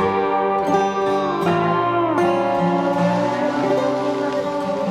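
Background music led by a plucked guitar, with some notes sliding down in pitch.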